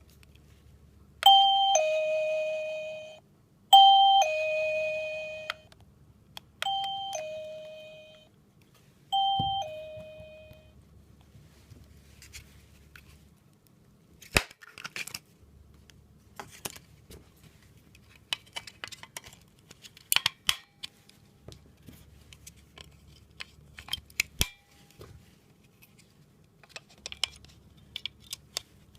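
Wireless motion-sensor chime receiver (REVEX X850) sounding a two-note ding-dong four times, each a higher note falling to a lower one and fading away; the last two are shorter and quieter. Scattered light clicks and taps of handling follow through the second half.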